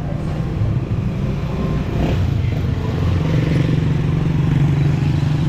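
Small motorcycle engine of a Philippine tricycle (motorbike with sidecar) running close by as it passes, growing louder about halfway through.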